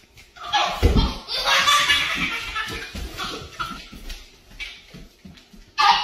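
Laughter in breathy, irregular bursts, with a low thump about a second in.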